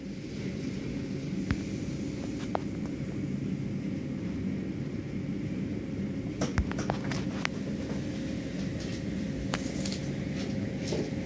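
Automatic car wash machinery running: a steady low rumble and hum from the spinning wash brushes and their motors, with a few sharp knocks in the middle and one near the end.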